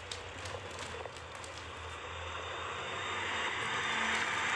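MAN multi-axle dump truck driving past close by on gravel: a low engine hum under tyre and road noise that grows louder to a peak near the end as the truck passes.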